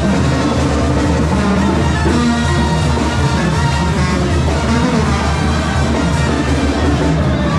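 Loud, steady instrumental music.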